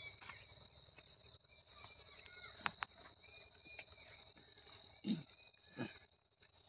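Faint, steady high-pitched insect trill, cricket-like, with a few short chirps scattered over it. A sharp click comes a little before three seconds in, and two brief louder sounds come near the end.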